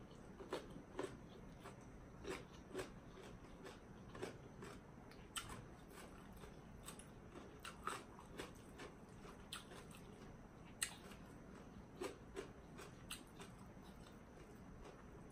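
A person chewing and biting into papaya salad and raw vegetables, heard as faint, irregular crunches and mouth clicks about once a second.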